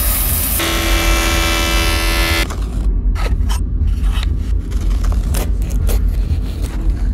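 Band saw cutting a block of wood, a steady whine with several tones that stops about two and a half seconds in. Then a run of short, uneven scraping strokes of hand tools on wood as a chisel carves a wooden speargun grip, over a steady low rumble.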